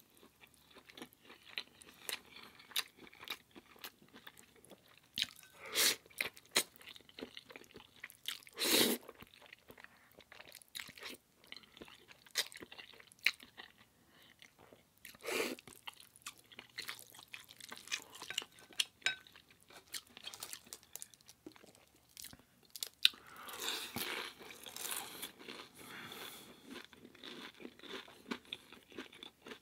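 Close-miked eating: a person biting and chewing food, a continuous run of small crunches and mouth clicks with a few louder bites about 6, 9 and 15 seconds in and a denser patch of chewing near the end.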